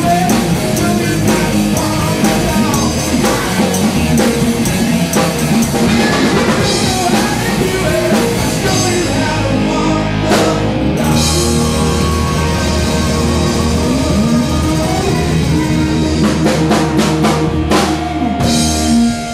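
Live rock band playing loudly: drum kit, bass and electric guitar, with some singing. Near the end a run of sharp drum hits and a held chord bring the song to its close.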